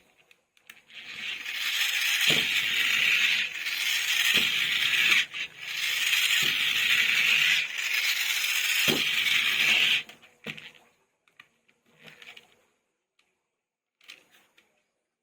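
Plastic toy packaging rustling and crinkling as it is handled, with a few knocks, stopping about ten seconds in; then only scattered light clicks and taps.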